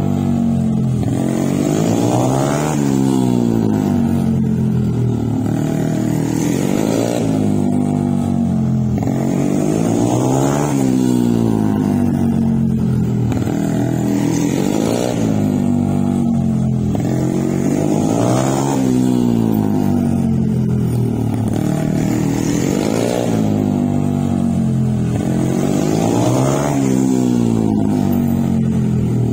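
Mini GP motorcycle engine revving up and easing off over and over, its pitch rising and falling about every four seconds as the bike laps a tight cone course.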